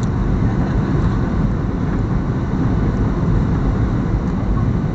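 Steady engine and airflow rumble inside the passenger cabin of a Boeing 737-800 on its approach to landing.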